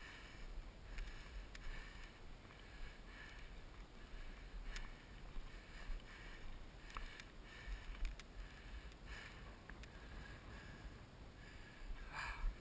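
Heavy, labored breathing of a tired hiker climbing a steep slope, close to the microphone, with breaths coming in a steady rhythm about twice a second and a louder exhale near the end. A low wind rumble and a few light clicks sit underneath.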